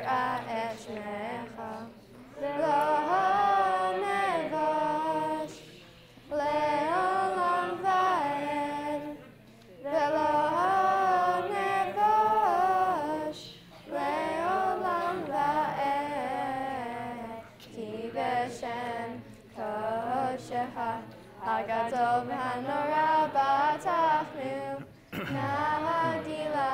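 Two girls singing a Hebrew prayer together, unaccompanied, in phrases of a few seconds with short breaks between them.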